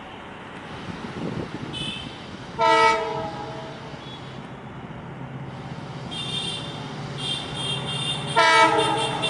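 Indian Railways WDP4D diesel locomotive approaching, its engine drone growing louder. It gives two short horn blasts, about three seconds in and again near the end.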